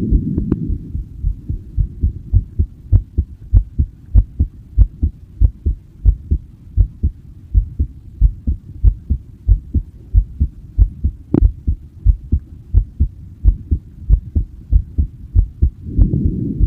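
A person's heartbeat picked up close, a regular run of low paired lub-dub thumps over a low rumble that swells near the start and again near the end. One sharp click about eleven seconds in.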